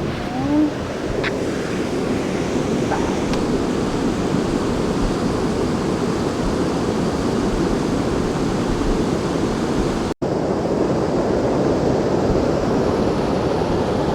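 Steady rushing of Wissahickon Creek's flowing water, a continuous even noise that cuts out for an instant about ten seconds in.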